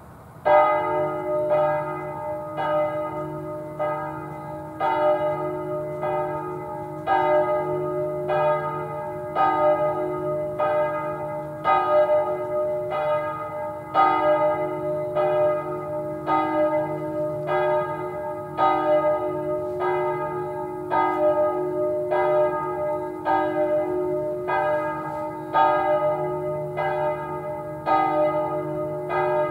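Church bells start the evening Angelus ringing about half a second in. Each stroke is rich and ringing, one following another about every three quarters of a second, with a louder stroke coming round every two seconds or so as the bells swing in turn.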